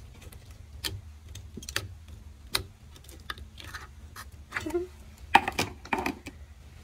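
Clear, clicky jelly slime pressed with a finger in a plastic cup, giving scattered sharp clicks and pops as small air pockets burst. Near the end, as the slime is pulled out of the cup, a quick run of louder pops and crackles.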